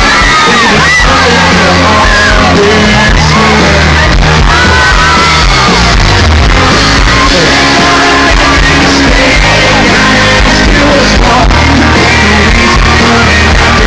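Live country band playing loudly with a male lead vocalist singing, and the crowd yelling and shouting along, heard from within the audience.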